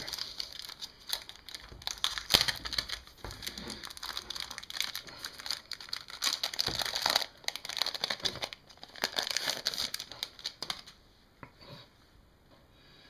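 Thin clear plastic sleeve being peeled and pulled off a new Kindle e-reader, crinkling and crackling in uneven bursts. It stops about two seconds before the end.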